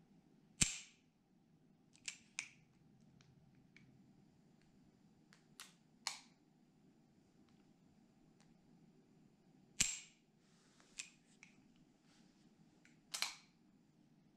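Sharp clicks from a .357 Magnum revolver being handled for Russian roulette, about nine in all, several in quick pairs. The loudest come about half a second in and near ten seconds.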